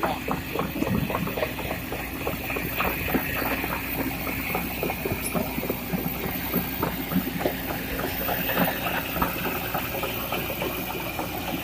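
Excavators working in a river: steady diesel engine running with a hiss, broken by frequent irregular knocks and clatter.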